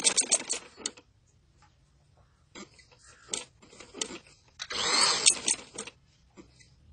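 Sewing machine stitching through cloth, its needle striking in a fast, even rhythm, then stopping about a second in. After it stop come a few light clicks and a short rustle of the fabric being moved and smoothed under the presser foot.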